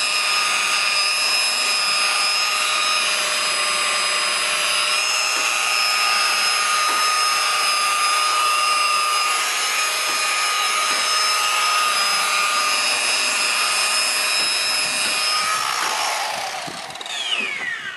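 Electric buffer running steadily at speed with a high whine, then switched off about 16 seconds in, its pitch falling as it spins down.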